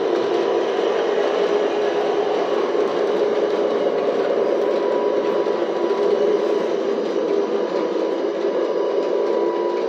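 G scale model diesel train running along its track, wheels rolling on the rails, under a steady engine drone. The drone is simulated diesel sound from an old MRC sound unit, sent by FM transmitter to a pocket radio riding in a boxcar.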